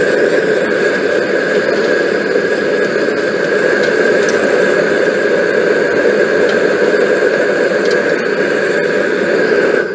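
Propane gas torch burning steadily inside a firebrick mini forge: a loud, even rushing with a thin high whistle, heating a steel chuck jaw toward cherry red for hardening. It cuts off abruptly near the end.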